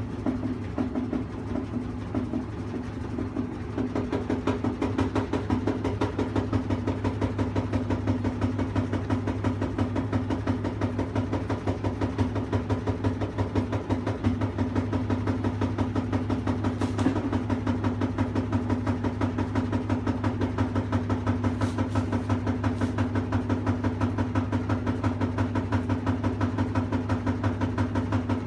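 Washing machine running with a steady low hum and a rapid, even pulsing of several beats a second that grows louder about four seconds in. This is the noise the owner is recording as a problem with the machine.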